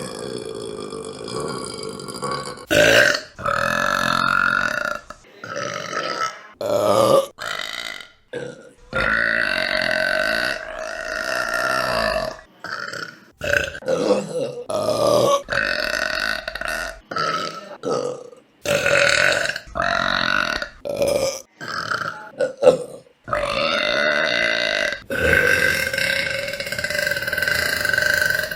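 A series of women's burps, one after another with short gaps. Some are brief and others are long, drawn-out burps held for a few seconds.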